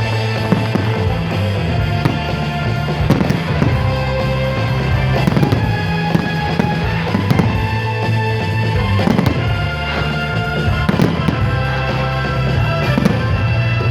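Fireworks bursting at irregular intervals, sharp bangs and crackles over loud music with a strong, steady bass line.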